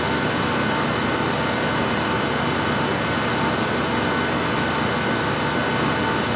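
Steady hum and hiss of laboratory machinery, with several steady whining tones held over an even noise and no change in level.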